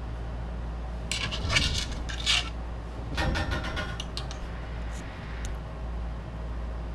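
Handling noise from a fly rod being twisted and lined up in a super-glued 3D-printed repair sleeve: light clicking and scraping about a second in and again around three seconds, with a few faint ticks after, over a steady low hum.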